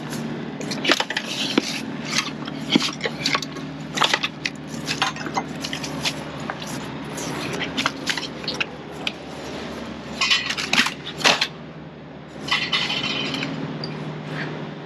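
Tools and boxed items being handled and set down: a string of clinks, knocks and rattles of hard objects, with two longer scrapes about ten and twelve seconds in, over a steady low hum.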